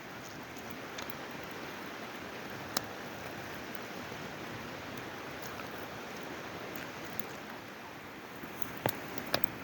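Newly lit campfire crackling, with a sharp pop about three seconds in and a few more near the end, over the steady rush of a creek.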